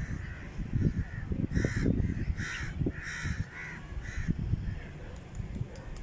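A crow cawing about six times in quick succession, over a low rumble of wind on the microphone.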